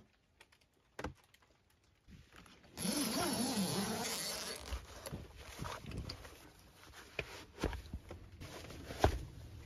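Rooftop tent's door zipper pulled open in one long stroke of about two seconds, then fabric rustling and scattered knocks as someone climbs out of the tent, with one sharp knock near the end.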